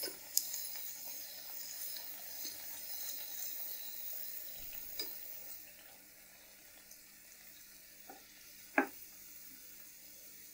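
Spinach puris deep-frying in hot oil, a soft steady sizzle that drops away after about six seconds. A few short knocks follow, the loudest near the end, from the slotted metal spoon against the pan.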